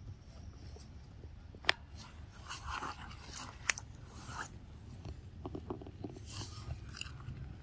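A young macaque biting and chewing ripe mango flesh held out in a person's hand, in short wet bites, with two sharp clicks about two seconds apart near the start.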